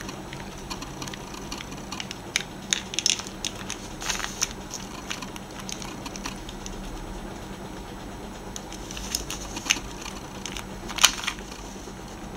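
Plastic Pyraminx pyramid puzzle being twisted by hand: irregular plastic clicks and clacks as its layers turn, coming in bunches with short pauses between, the loudest click near the end.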